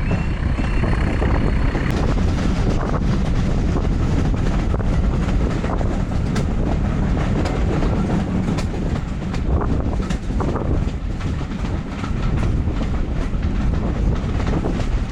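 Class 14 diesel-hauled train running along the line: a steady rumble with the wheels clicking over the rail joints.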